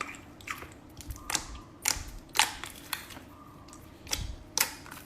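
A run of sharp, irregular clicks and taps, about eight in five seconds, the loudest about two and a half seconds in.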